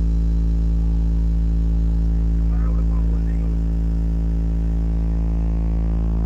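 A DJ sound system plays a deep bass test tone: one steady, loud, very low hum with a stack of overtones, held unbroken. It dips slightly in level about three seconds in.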